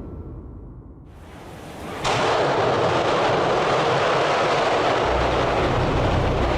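Music fading out, then about two seconds in a sudden loud, steady rushing noise that carries on.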